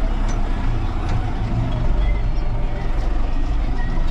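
Tractor's diesel engine running steadily, heard from inside the cab as a low drone, with a few faint clicks over it.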